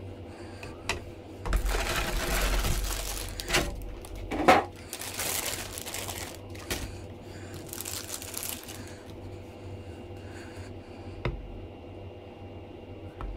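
Thin clear plastic bag crinkling and rustling in bursts as it is handled and pulled off a PVC figure, with scattered taps and knocks from the plastic tray and figure. The loudest is a sharp knock about a third of the way in.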